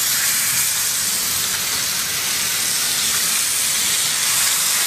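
Beef steaks sizzling steadily and loudly in a hot, oiled ridged grill pan as they are laid in.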